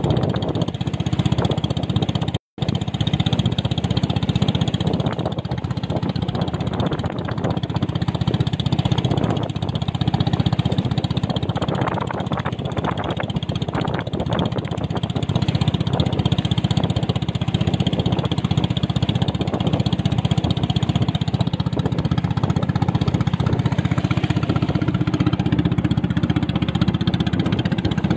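Small boat's engine running steadily while the boat moves across open sea, with water rushing along the hull. The sound cuts out for an instant about two and a half seconds in.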